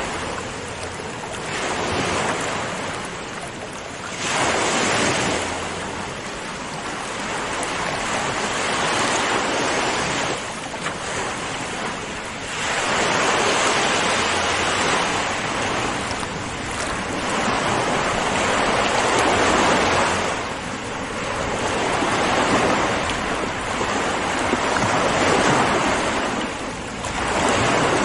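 Ocean waves breaking on a shore, a continuous surf wash that swells and eases every few seconds.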